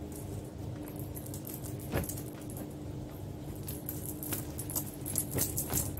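Clothes being handled: light rustling and small clicks, with one sharper click about two seconds in, over a steady low hum.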